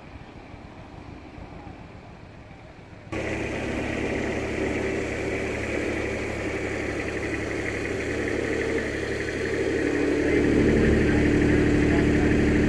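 An engine idling steadily. It cuts in abruptly about three seconds in after faint background noise, and gets louder near the end.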